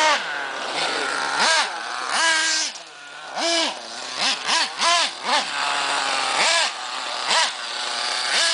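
Small nitro engine of a 1/8-scale TNX5.2R RC monster truck revving in short throttle blips. It rises sharply in pitch and drops back about ten times, idling low in between.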